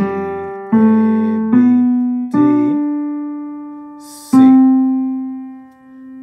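Piano playing a simple single-note beginner melody in three-time: four notes struck about a beat apart, then two long held notes, each dying away.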